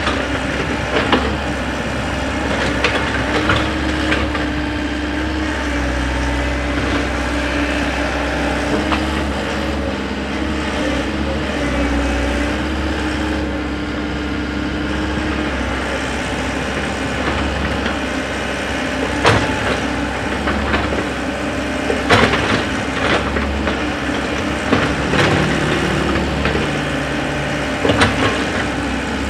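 Komatsu wheeled excavator's diesel engine running steadily under load as the bucket digs, its pitch shifting now and then, with the bucket scraping and knocking against stony earth; a few sharp knocks come in the second half.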